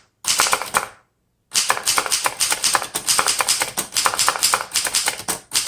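Fast typing on a 1938 Remington Portable Deluxe typewriter: quick runs of key and typebar strikes against the platen, with a short pause about a second in. The strikes have a popping sound because this machine has no bar holding the paper tight against the platen.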